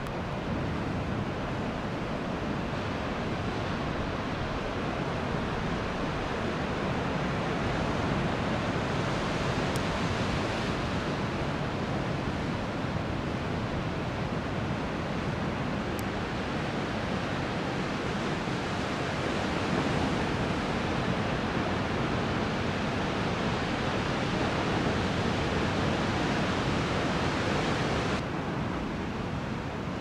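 Steady roar of large ocean surf breaking and washing in. It swells a little about a third of the way in and again in the second half, then drops suddenly near the end.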